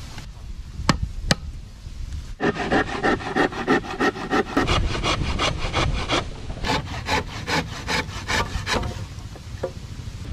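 Hand saw cutting across a wooden plank in quick, even back-and-forth strokes, starting about two and a half seconds in and stopping near the end, after two sharp knocks of wood about a second in.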